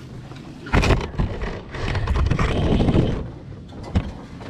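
A sudden thump, then about a second and a half of scraping, and a sharp knock near the end.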